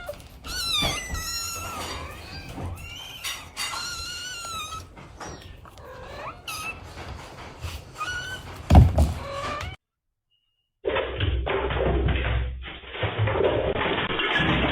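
A cat meowing several times in high, rising and falling calls. A little before halfway there is one loud thump, like a door banging, and after a brief break in the sound a muffled, noisy recording starts.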